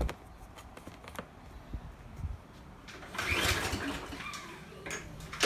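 A few faint clicks, then about three seconds in the recoil starter of a Briggs & Stratton 163cc lawn mower engine is pulled, cranking the engine over for about a second.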